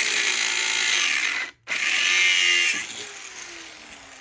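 Power tool with an abrasive cutoff disc cutting through a copper transformer winding, a loud hissing grind, with a short break about a second and a half in. Near three seconds in the cut ends and the disc winds down, its motor tone falling.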